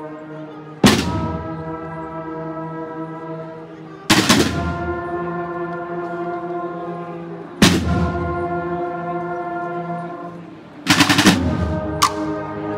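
A processional brass-and-drum band plays a slow march. Brass notes are held, and loud drum strikes land every three to four seconds, with a quick cluster of strikes near the end.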